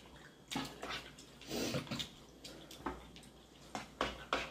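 Close-miked sounds of people eating soup: wet slurping and chewing, with scattered short clicks and taps of spoons and mouths.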